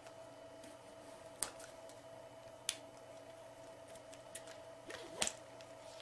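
Faint handling sounds of a biothane collar strap being threaded through a plastic e-collar receiver: three sharp light clicks, about a second and a half apart and then two and a half seconds apart, with a few softer ticks, over a low steady hum.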